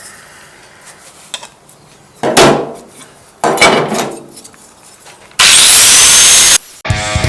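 Two knocks on the repair work, each with a short ring, then a loud power tool whining up to a high speed for about a second before cutting off suddenly. Music starts just at the end.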